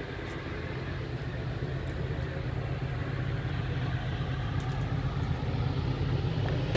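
A vehicle engine's steady low rumble, slowly growing louder.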